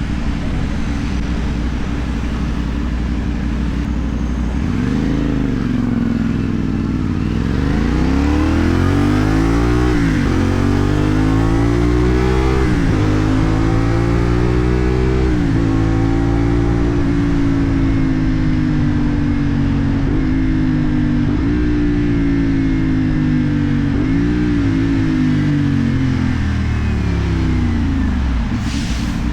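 CFMoto 450NK parallel-twin engine through a LeoVince aftermarket exhaust, ridden hard up through the gears: the pitch climbs and drops back at each of about four upshifts in the first half. It then holds a steady cruise and dips twice near the end as the throttle is eased.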